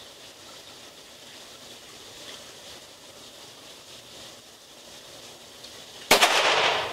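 One shot from a Browning Buck Mark III .22 LR pistol about six seconds in: a sudden sharp report that trails off in a short wash of reverberation in the indoor range. Before it there is only a faint, steady hiss.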